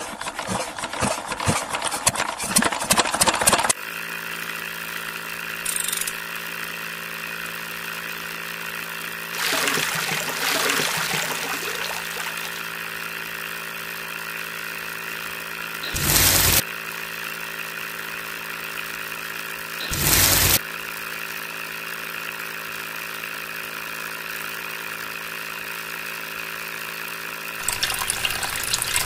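Small electric motor of a homemade mini cement mixer running steadily with a constant hum-whine as the plastic drum turns, after a rough rasping noise at the start. About ten seconds in, dry sand and cement pour into the spinning drum with a short rushing sound, and two brief loud bursts of noise come later.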